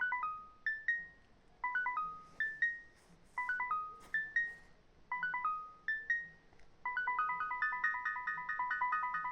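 Roland P-6 sampler playing a techno pattern of short, high, beepy synth notes in repeated phrases. About seven seconds in, a faster, steady run of notes joins and the pattern thickens.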